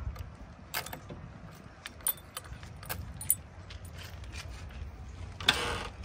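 A bunch of keys jangling and clicking in the cab-door lock of a JCB 3DX backhoe loader as the door is unlocked, with a few sharp clicks spread over several seconds. A louder click comes near the end.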